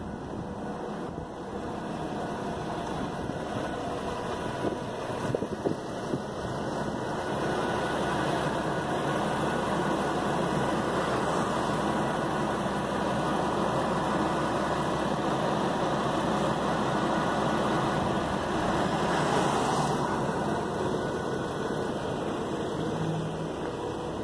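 New Flyer XN40 transit bus's compressed natural gas engine idling, a steady hum with fan noise that grows louder for the middle stretch.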